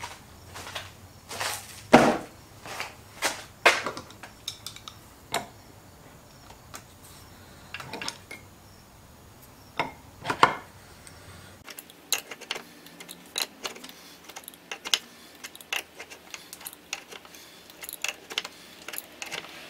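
Metal tools and parts clink and knock on a wooden workbench, with a few sharp clanks in the first half. Then comes a run of small metallic ticks and scrapes as an adjustable wrench tightens the threaded retainer into a power steering rack housing.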